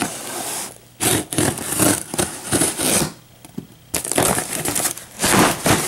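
Scissors slitting the packing tape on a cardboard box, and the tape and cardboard flaps being torn open: three stretches of scraping and tearing with short pauses between them.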